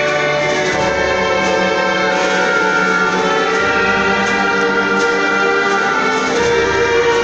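Symphony orchestra playing sustained chords, with the brass prominent over the strings.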